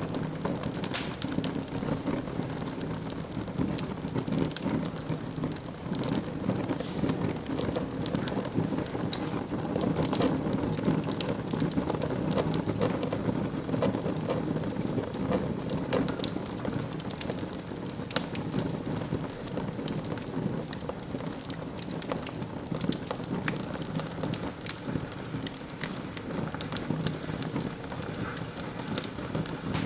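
Wood fire burning in a fireplace, with dense crackles and pops over a steady low rush of flame.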